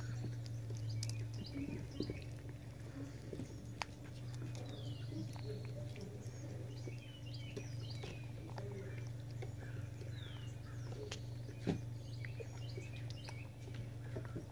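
Birds chirping, short descending calls repeated every few seconds, over a steady low hum, with a few sharp clicks.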